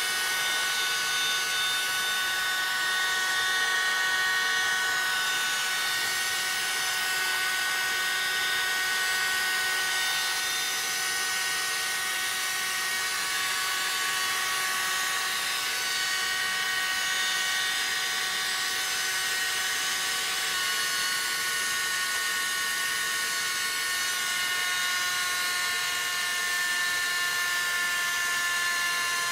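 Smiths vertical gyro's rotor running, a steady high-pitched whine of several tones that drifts slightly lower in pitch in the second half.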